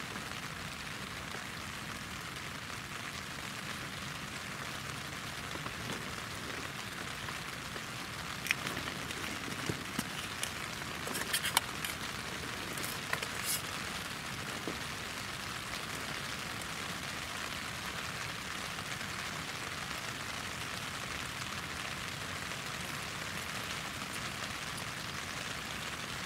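Steady rain falling on the tent, an even hiss. A handful of short, sharp clicks and taps come through it about a third of the way in.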